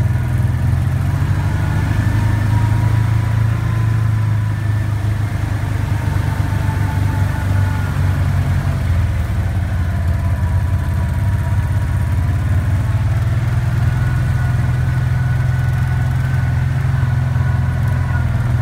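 Off-road side-by-side UTV engine running steadily at low speed while driving, a low even drone with a faint whine drifting slowly in pitch above it.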